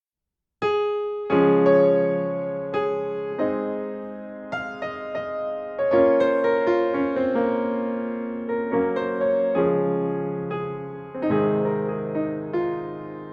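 Solo piano playing slow chords, each struck and left to ring out.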